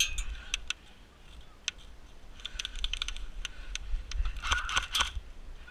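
Scattered airsoft gun shots: sharp, irregular clicks and snaps, bunching up about two and a half seconds in and again near the end.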